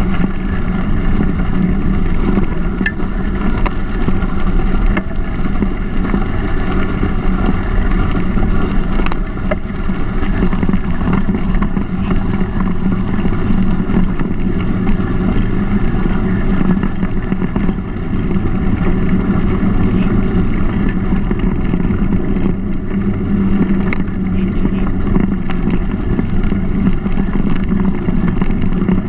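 Steady, loud rush of wind buffeting and tyre rumble on a mountain bike's helmet- or bar-mounted GoPro as it rolls along a dirt canal towpath. A few faint clicks come through.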